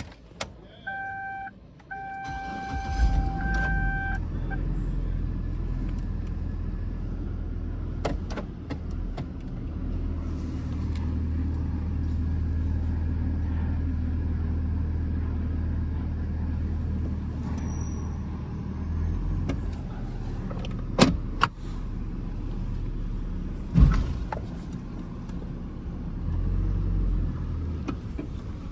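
2008 Hummer H3 starting up: a warning chime sounds twice as the engine cranks and catches about two to three seconds in, then the engine runs steadily. A few sharp knocks stand out over the engine, the loudest about 21 and 24 seconds in.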